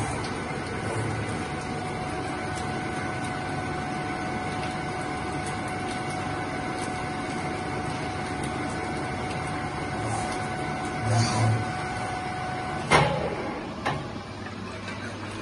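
Mikron WF 31 C tool milling machine running with a steady whine over a mechanical drone. Two dull thumps come at about 11 s. Near the end a sharp click is heard and the whine stops, with a second click a moment later.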